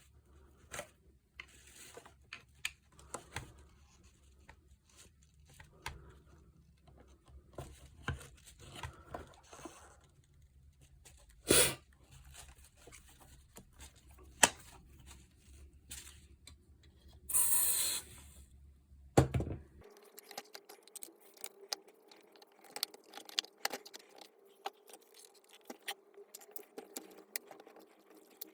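Hand work on a reciprocating saw being taken apart: scattered clicks, taps and scrapes of metal and plastic parts and tools, with a few louder knocks and a short hiss a little past halfway.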